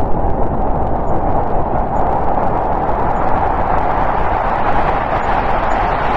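Snowstorm wind blowing steadily, a deep rushing with a hollow howl that swells a little partway through.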